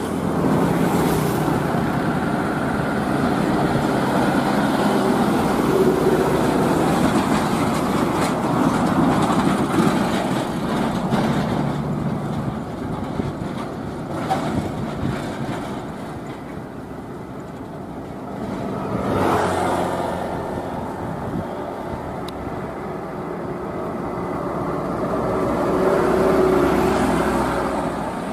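Heavy diesel trucks driving past on a highway, their engines and tyres making a continuous rumble that swells and fades as each passes. It is quieter for a few seconds around the middle, then swells again near the end.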